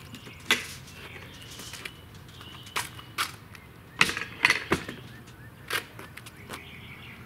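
Scattered knocks and clicks from handling a foil-covered foam-board reflector in a wooden frame as it is lifted and set onto a wooden solar-oven box, with the loudest cluster of knocks about four seconds in, as it is set down.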